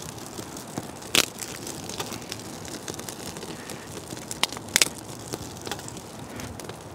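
Kindling fire of spruce twigs and small dead maple pieces burning hard in a folding camp stove, crackling steadily with a few sharp pops, the loudest about a second in and just before five seconds in.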